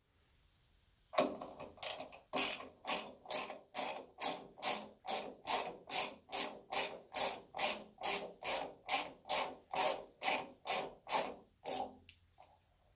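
Mechanical ratcheting in an even rhythm of about two strokes a second. It starts about a second in and stops near the end.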